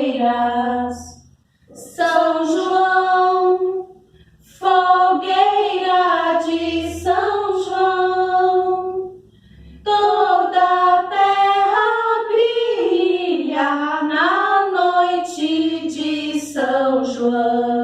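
Unaccompanied high voice singing the melody of a children's campfire song, in long phrases with short breaths between them.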